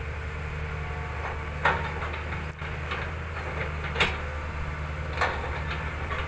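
Fiat Hitachi 200.3 excavator's diesel engine running steadily, with a few sharp knocks from the machine as it works the bucket in the soil. Three of the knocks are louder than the rest.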